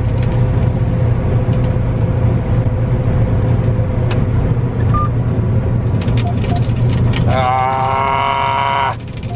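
John Deere combine running under load, a steady drone heard from inside the cab, with scattered light ticks about six seconds in. Near the end a held, pitched tone with several overtones comes in for about a second and a half.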